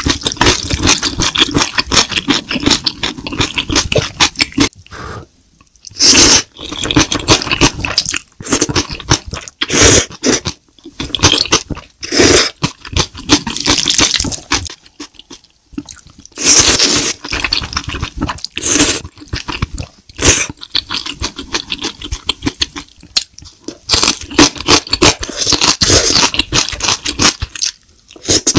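Close-miked eating of saucy noodles: wet chewing and smacking, broken by several loud slurps of noodles, each lasting about a second.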